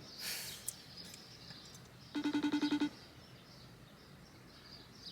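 Phone call ringing: a short, fast-trilling electronic ring about two seconds in, part of rings that repeat every three seconds or so. A brief rustle comes just before it.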